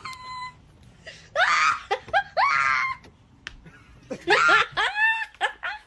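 A person laughing hard in several loud bursts, with a brief steady tone in the first half second.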